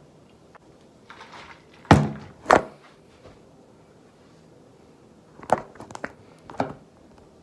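Knocks and thumps of a phone camera being handled and moved: two sharp knocks about two seconds in, the first the loudest, then a cluster of three or four lighter knocks near the end.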